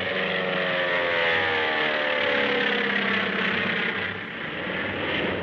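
The twin Allison V-12 engines of a Lockheed P-38 Lightning drone steadily in a low fly-by, their pitch falling slowly as the plane passes.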